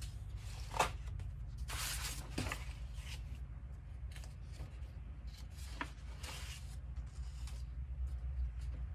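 Large folded paper poster pages being unfolded and turned by hand: rustling and sliding paper, with a sharp crisp paper snap about a second in and further rustles around two and six seconds, over a low steady hum.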